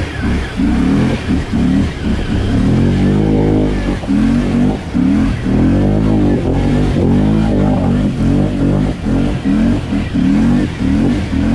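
Can-Am ATV engine running hard, its pitch pulsing and rising and falling repeatedly as the throttle is worked.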